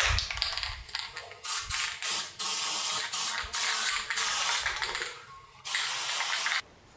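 Aerosol spray can hissing in three spells, about a second, two seconds and a second long, onto the ground-cut end of a galvanised steel knee brace, after a moment of handling noise at the start. The last spell cuts off sharply.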